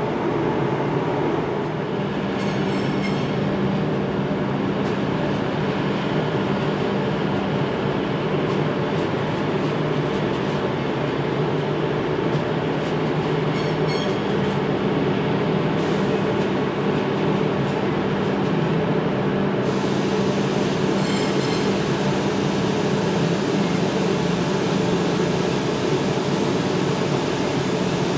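Steady rumble of a train running slowly on the station approach tracks, with the low, even drone of an East Midlands Railway Intercity diesel unit's engines (a Class 222 Meridian).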